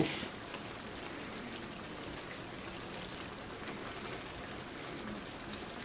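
Tomato sauce simmering in a skillet: a faint, steady hiss with small scattered pops.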